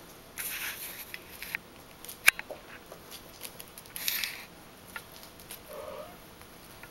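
Persian kittens stirring in a cloth-lined woven basket: soft rustling and scratching, with one sharp click a little over two seconds in.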